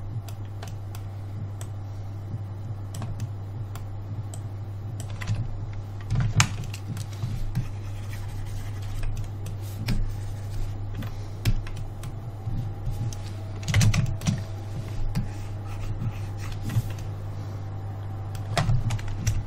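Computer keyboard keys clicking at irregular moments, a few louder clicks several seconds apart, over a steady low hum.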